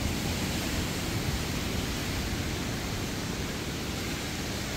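Steady rushing of a waterfall, an even noise without breaks.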